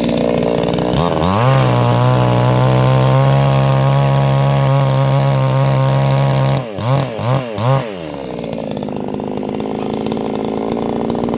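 Stihl chainsaw engine revved up to full throttle about a second in and held steady for about five seconds. It is then blipped three times in quick succession and drops back to a lower, steady running speed.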